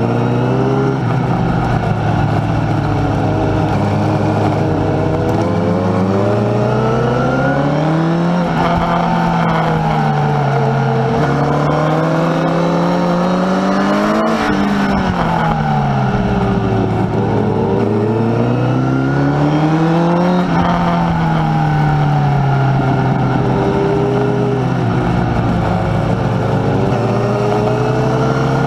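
Honda sport bike's engine heard from on board, held in second gear and rising and falling in pitch as the rider opens and closes the throttle, climbing to a peak three times, over a steady hiss of wind.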